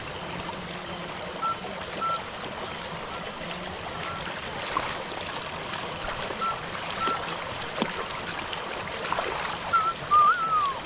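Stream water running steadily, with a few short high peeps and scattered faint clicks over it. Near the end comes a brief wavering high call.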